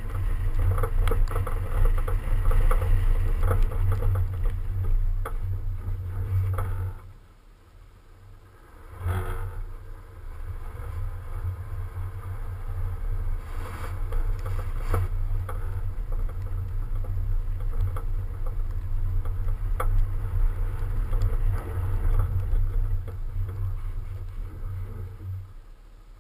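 Car driving fast on packed snow, heard through a camera mounted on the outside of the body: heavy wind buffeting on the microphone over a low rumble from the tyres. The rumble drops away for about two seconds around seven seconds in, comes back, and fades near the end.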